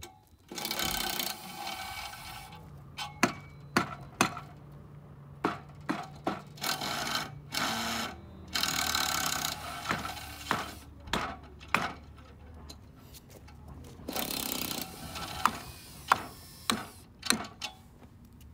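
Irregular sharp knocks and clicks, about a dozen, with a few short rasping stretches, from the chainsaw mill and hand tools being handled on the log; the saw is not running.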